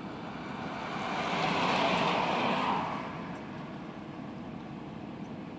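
A pickup truck towing an empty flatbed trailer drives past on the road: tyre and road noise swells to a peak about two seconds in and then fades.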